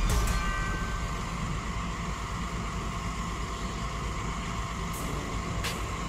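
Heavy diesel machinery running steadily, from a Sumitomo SH210 excavator and a wheel loader, as a low rumble with a steady whine. A couple of light clicks come near the end.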